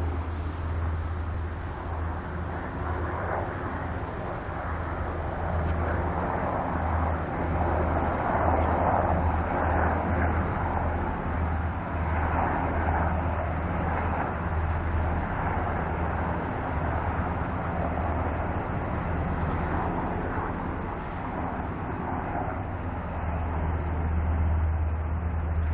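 Several Apache helicopters circling overhead: a steady low rotor drone under a broad rushing engine noise that swells about a third of the way in, fades, and swells again.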